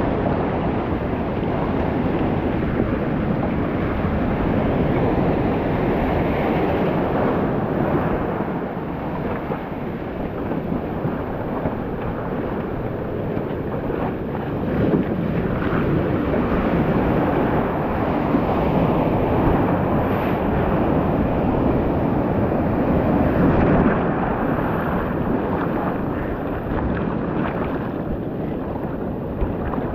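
Breaking surf and churning whitewater right around a surfboard, with wind buffeting the microphone: a steady, loud rush of water.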